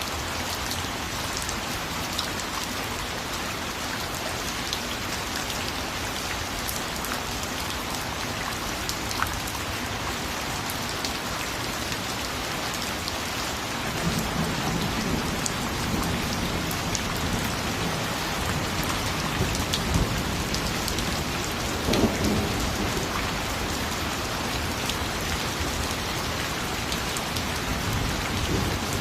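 Steady rain falling on a surface, an even hiss with scattered drop ticks. About halfway through a low rumble of thunder rolls in and keeps up, with one sharper crack a little later.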